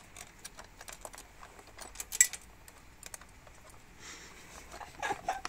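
Small metal bolts and a bracket clicking and rattling under the hands while a motorcycle's battery holder is fitted back. About two seconds in comes one sharp, ringing metallic clink: a small bolt dropping and falling down into the frame.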